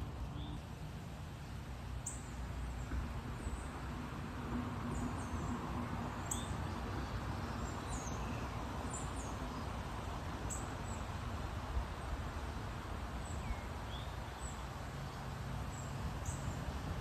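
Birds chirping: many short, high, falling chirps scattered throughout, over a steady outdoor background hiss.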